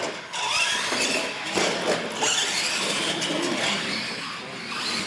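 Radio-controlled monster truck driving on a smooth concrete floor: its motor whines, rising and falling with the throttle, over tire noise.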